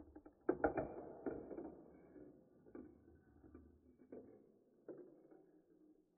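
A marble running down a plastic building-block marble run: a cluster of sharp clicks about half a second in as it drops through the funnel into the tube, then a rolling rattle along the plastic track that fades, broken by a few single clicks.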